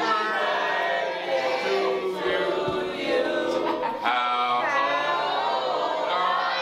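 A group of people singing together in unison, with several voices overlapping.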